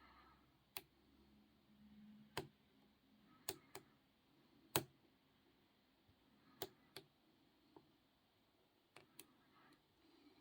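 Small metallic clicks of a hook pick and tension tool working the pins inside a Jasafe 50 mm padlock, about ten sharp clicks at irregular intervals, the loudest near the middle, over near silence.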